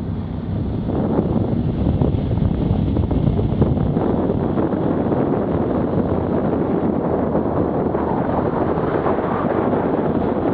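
Wind buffeting the microphone of a camera on a moving BMW F800GS motorcycle, over the steady running of its parallel-twin engine. The sound grows a little louder about a second in.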